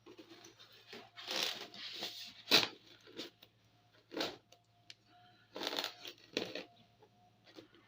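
Packaging of a boxed diecast model car being handled and opened by hand: irregular rustling and crinkling, with a sharp click about two and a half seconds in.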